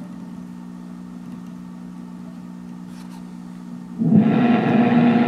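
Victor R-39 antique radio's loudspeaker giving a steady low hum between stations. About four seconds in, a much louder rush of noise with a steady tone cuts in as the radio's knobs are worked.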